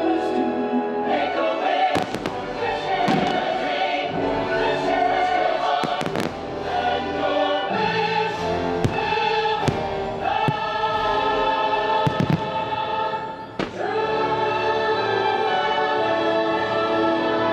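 Orchestral show music with a choir singing long held notes, cut through by the sharp bangs of aerial fireworks bursting every second or two.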